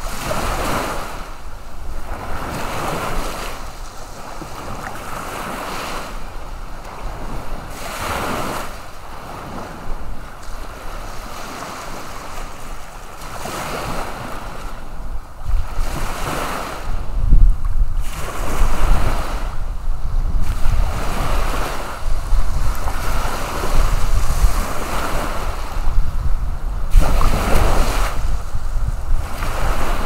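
Surf: small waves breaking and washing up the shore, swelling in repeated surges every couple of seconds. Wind rumbles on the microphone, stronger in the second half.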